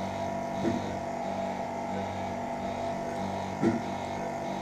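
Steady hum of operating-room machines with a faint regular pulsing about every two-thirds of a second, and two brief soft knocks, one about a second in and one near the end.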